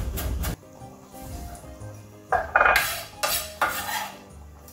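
Chef's knife on a wooden cutting board: quick chops through fresh parsley in the first half-second, then a cluster of louder knocks and scrapes a little over two seconds in as the chopped parsley is scraped off the board into the pot. Soft background music underneath.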